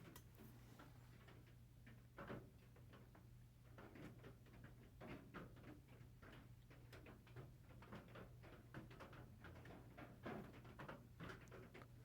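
Near silence with faint, scattered small clicks and rustles of handling, over a faint steady low hum.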